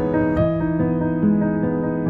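Background music led by a gentle piano, playing a slow melody of held notes.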